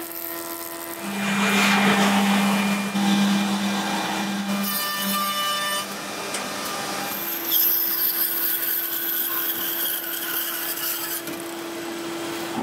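Woodworking machines running: a steady motor hum with stretches of wood being cut and fed through. The sound changes abruptly a few times as one machine gives way to another.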